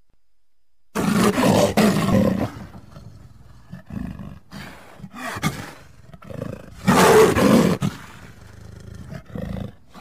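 Leopard calling: a loud call about a second in and another about seven seconds in, each lasting about a second and a half, with shorter, quieter grunts between them and near the end.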